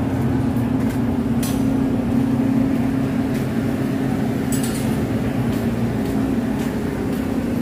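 A steady mechanical hum, the same pitch throughout, with a few faint clicks over it.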